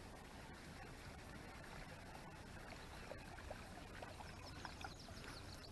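Faint outdoor ambience: a steady low rumble with a few light clicks, and a run of faint, short high chirps near the end.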